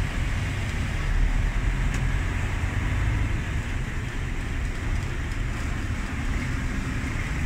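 Steady ambient background noise, a low rumble with a hiss over it and no distinct events.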